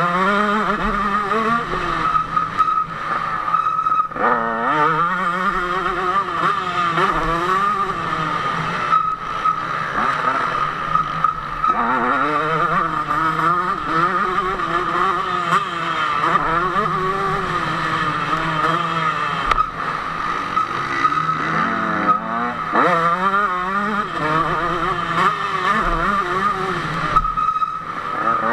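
KTM 150 SX single-cylinder two-stroke motocross engine at race pace, heard from the rider's helmet. It revs up hard again and again through the gears and drops back between climbs for braking and corners.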